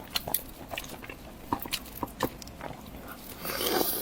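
Close-miked eating sounds: chewing with irregular wet clicks and lip smacks, and a louder, longer sound near the end.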